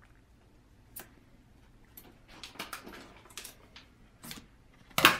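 Stiff game cards being flipped through by hand: scattered light clicks and snaps, coming faster about halfway through, with a louder sharp snap near the end.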